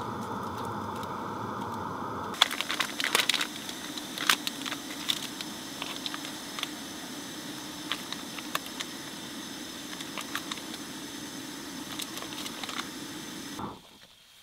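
Canister gas stove under a cooking pot, its burner hissing steadily; the hiss shifts lower about two seconds in. Over it come clicks and crinkling from a plastic food package being handled. The burner sound stops suddenly near the end.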